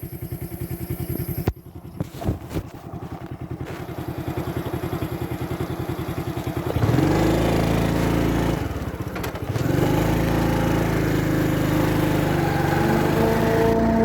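An engine runs with a rapid, even chug. About seven seconds in, a train horn sounds a short blast, then a long one from about ten seconds, and a higher chord of tones joins near the end.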